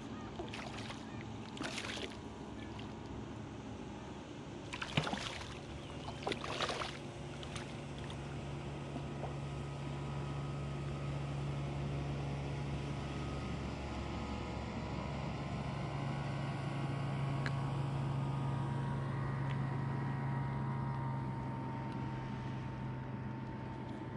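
A few short splashes as a summer flounder is handled in shallow water, then the steady drone of a distant boat engine that builds to its loudest about three quarters of the way in and slowly fades.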